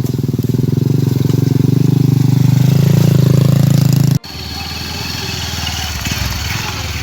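A small engine running close by and growing louder, cut off abruptly about four seconds in. It is followed by a noisier outdoor background with a steady high-pitched tone.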